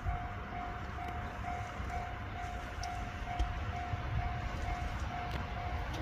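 Japanese railway level crossing's electronic warning bell ringing, a single-pitched ding repeating evenly about twice a second, over a low rumble.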